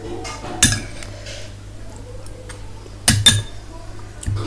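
A metal spoon clinking against dishes: one sharp clink just under a second in, then two quick clinks about three seconds in.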